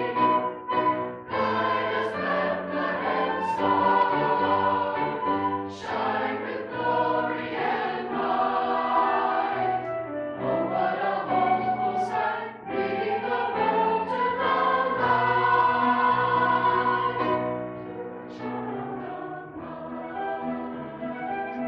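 Church choir singing a Christmas anthem in harmony, with accompaniment, in sustained phrases with short breaks between them.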